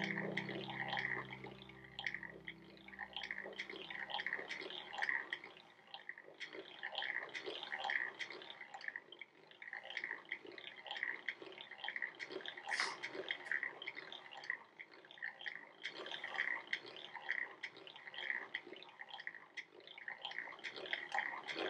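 Hand-cranked 1888 Singer 12 sewing machine winding a bobbin, its crank and handwheel turning with the needle disengaged. It makes a steady run of light mechanical clicks, about two a second.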